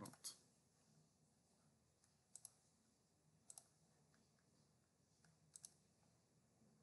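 Computer mouse clicking: four short double clicks spread out, each a quick press and release, with near silence between them.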